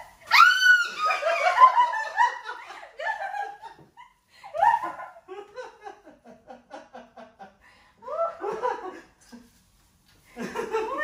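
A woman laughing, with high-pitched squeals at the start and short rapid runs of giggling later, broken by brief pauses.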